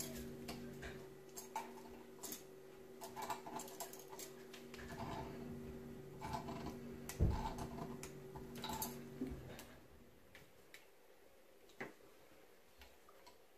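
Light metallic clicks and ticks of a hand tool on the fittings of a hydraulic pump's slowdown needle valve as the stuck valve is worked loose, with one louder knock about seven seconds in. A steady low hum underneath stops about nine seconds in.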